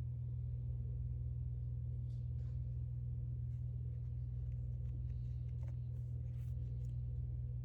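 A steady low hum, with a few faint light clicks and rustles.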